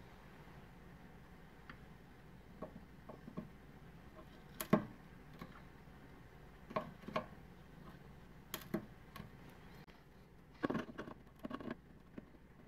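Small wire cutters snipping resistor leads on an engine computer's circuit board: a handful of short, sharp clicks spread across several seconds, the loudest about five seconds in, with light handling knocks around them.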